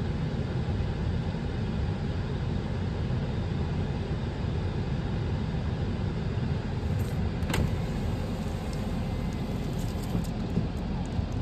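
Steady low rumble of blizzard wind, with one sharp click about seven and a half seconds in.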